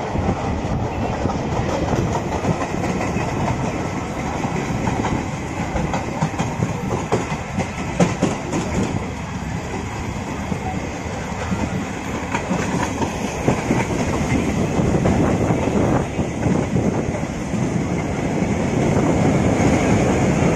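Passenger train running along the track, its wheels clattering over the rail joints, with a sharp knock about eight seconds in and the noise growing a little louder near the end.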